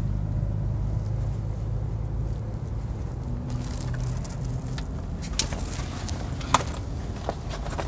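Steady low hum inside an SUV's cabin, with the interior fittings handled from about three and a half seconds in: rustling and several sharp plastic clicks.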